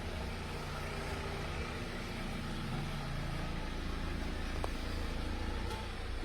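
Yamaha YZF-R6 (RJ27) 600 cc inline-four with an Akrapovič exhaust, idling steadily with a low rumble and no revving.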